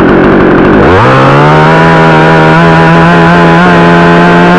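62cc chainsaw idling, then throttled up sharply about a second in and held at steady high revs while cutting a branch.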